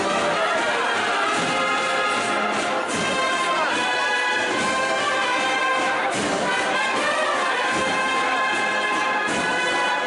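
Processional brass band playing a Holy Week march live in the street, with held, steady brass chords.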